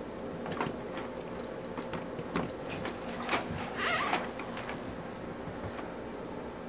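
Scattered light clicks and taps of the plastic toys on a Chicco activity saucer, handled and batted by a baby's hands, with a brief baby coo about four seconds in.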